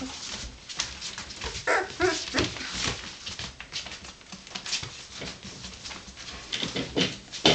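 Three-week-old Irish terrier puppies whimpering in short calls, a cluster about two seconds in and more near the end. Soft scratching and rustling of their paws on the blanket comes between the calls.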